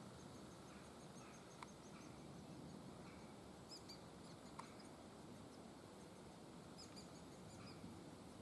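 Faint, high-pitched chirping of great spotted woodpecker nestlings calling from inside the nest hole, in short runs of quick notes, with two sharp clicks.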